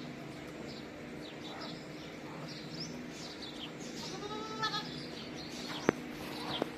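Small birds chirping again and again, with one bleat from a farm animal about four and a half seconds in, over a faint steady hum. A sharp click near six seconds is the loudest sound, with a softer one just after.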